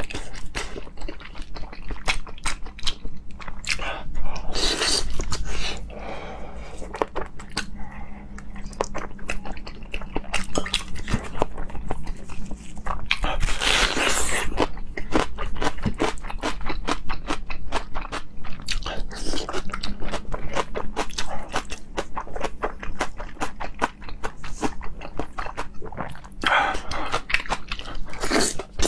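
Close-miked wet chewing, lip-smacking and slurping of soft braised pork, with a louder crunchy bite of raw red onion about fourteen seconds in.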